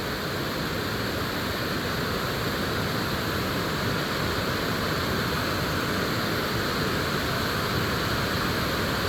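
Water pouring over a small dam spillway, a steady even rush.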